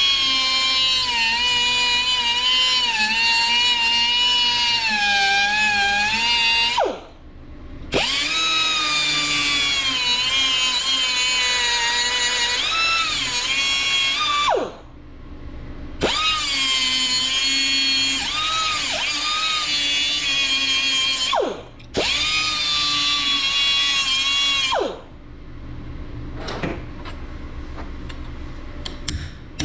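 A high-pitched handheld power tool motor running at full speed in four long runs, its pitch wavering under load. Each run ends with the whine sliding down in pitch as the tool spins down, and a few light ticks follow the last one.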